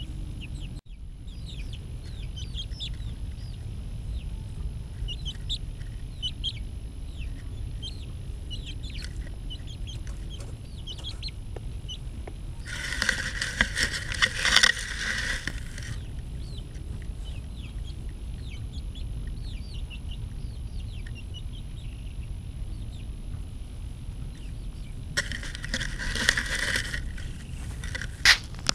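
Young chickens peeping, many short high chirps scattered throughout, over a steady low rumble. Twice, about a third of the way in and again near the end, a louder rustling noise rises for a couple of seconds.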